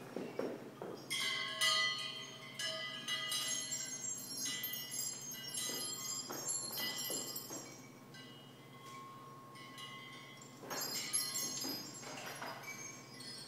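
Metal chimes struck several times, their bell-like tones ringing on and overlapping. There is a run of strikes in the first few seconds, a lull, then a few more strikes near the end.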